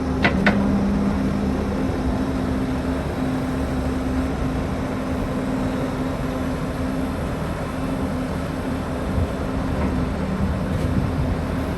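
Diesel engine of a John Deere 333E compact track loader running steadily, with two short clicks just after the start.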